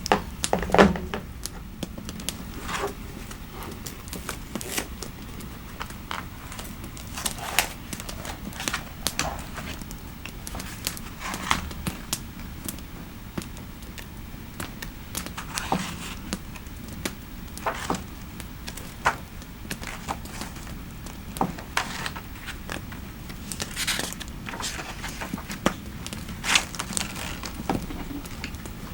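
Wood fire crackling in a fireplace: irregular sharp pops and snaps, one to three a second, over a steady low background.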